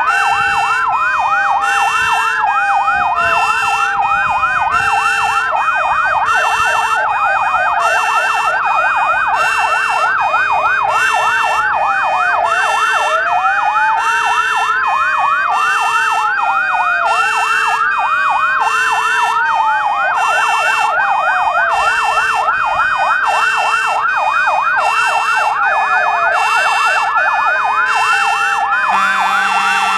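Sirens of several fire engines sounding at once. Fast yelping sweeps and slower rising-and-falling wails overlap, over a regularly repeating two-tone pattern.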